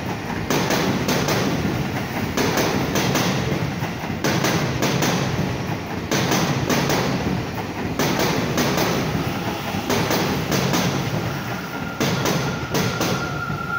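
Seibu Railway electric commuter train running past, its wheels clacking over the rail joints in regular pairs. A steady high whine comes in near the end.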